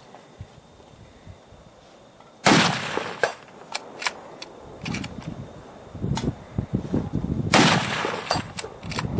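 Two shots from a Remington 700 LTR bolt-action rifle in .308 Winchester, about five seconds apart, each a sharp crack followed by a rolling echo, with fainter clicks between them. Wind buffets the microphone in the second half.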